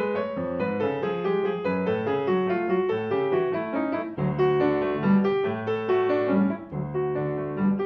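Grand piano played solo: a classical piece moving in a steady flow of notes, with deeper, louder bass notes coming in about four seconds in.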